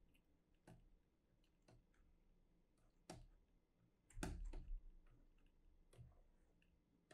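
Faint, irregular desk clicks and taps from working the computer controls, about five in all, with a short cluster of taps about four seconds in, over near silence.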